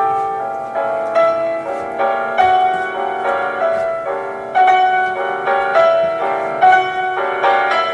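Solo piano playing a classical piece: a flowing line of notes, several a second, over held chords.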